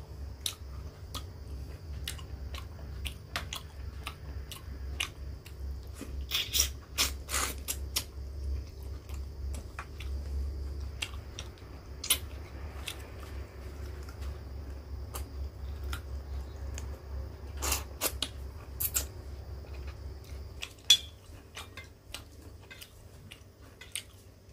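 Close-miked chewing of a person eating rice by hand, with many short wet clicks and smacks at irregular intervals, over a steady low hum.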